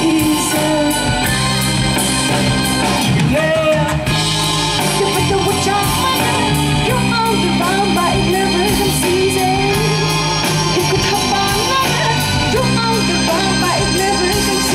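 Live rock band playing a song: electric guitars, drum kit and keyboard, with a singer's voice carrying the melody over them.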